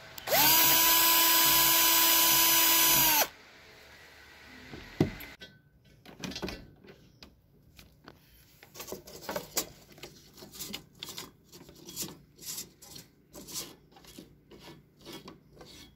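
Cordless drill spinning up and running at a steady speed for about three seconds as a small metal-cutting bit drills a pilot hole into a steel chain-link fence top rail tube, then winding down. A sharp knock follows, then a run of short, irregular rubbing and scraping sounds from the tube being handled.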